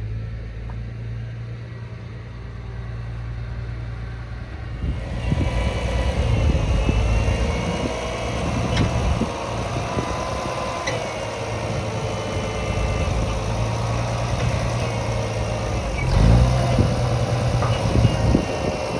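Old International Harvester tractor engine running steadily, with a louder layer of mechanical clatter and whine joining in about five seconds in.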